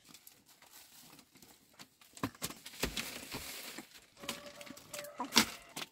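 Plastic bags rustling and crinkling in a woven bamboo basket as they are handled, with scattered clicks and one sharp knock near the end.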